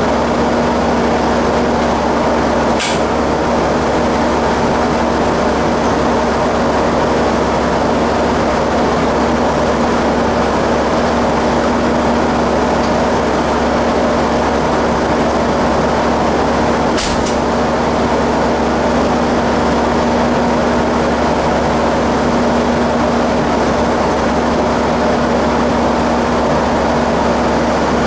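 Ex-JNR KiHa 30-series diesel railcar idling at a stand, heard inside the driver's cab: a steady engine drone with a low hum. A sharp click comes about three seconds in, and a double click a little past halfway.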